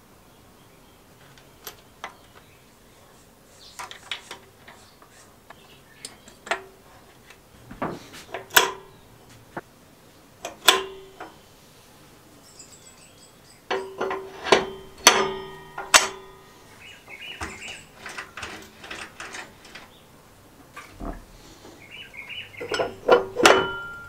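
Sharp metallic clicks, clinks and knocks of lawnmower parts being handled and fitted: a roller chain worked over its sprockets, then a drum slid onto its shaft. The clicks are scattered at first, with a busy run of knocks about halfway through and another near the end.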